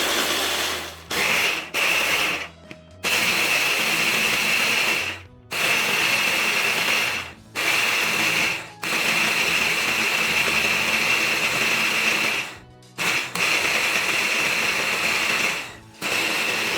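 Electric blender grinding lemon peel, switched on and off in repeated pulses that last from under a second to several seconds, with short stops between them.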